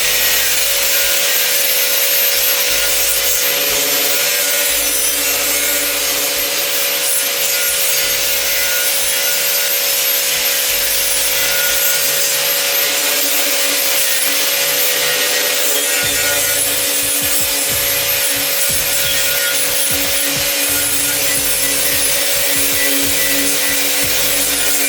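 Rust being abraded off a cast iron pot lid: a continuous, even scouring sound with a steady tone underneath, as from a motor-driven sanding or brushing tool.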